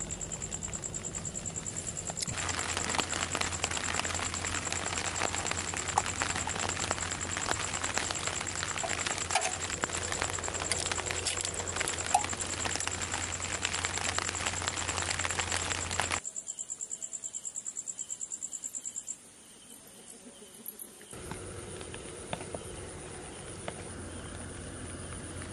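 Pot on a camp stove cooking, a steady hiss with small scattered pops, over a steady high insect trill. The sound changes abruptly between shots and almost drops out for a few seconds past the middle.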